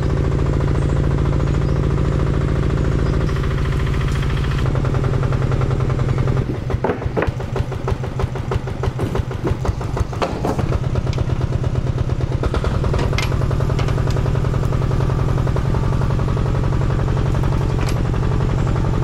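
Walk-behind tiller's small engine running steadily, with scattered knocks and clatter of branches thrown onto its steel trailer bed.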